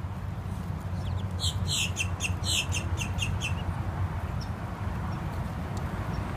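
Muscovy ducklings peeping: a quick run of about ten short, high peeps lasting about two seconds, starting just over a second in. A steady low rumble runs underneath.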